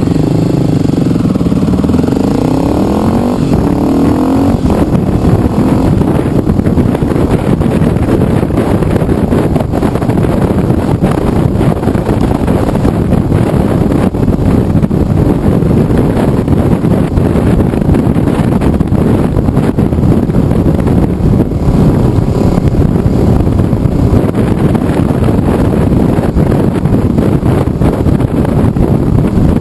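Motorcycle being ridden: the engine revs climb over the first few seconds, then it runs on steadily under loud, constant wind and road noise.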